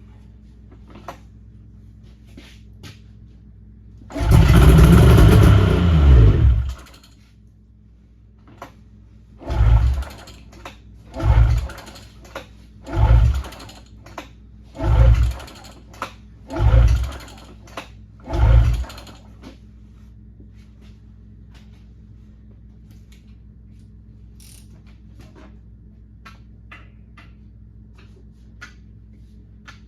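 Yamaha V-Max triple snowmobile's two-stroke three-cylinder engine being started: it fires and runs for about two and a half seconds, falling in pitch as it dies. Then come six more start attempts about two seconds apart, each a short burst that does not catch.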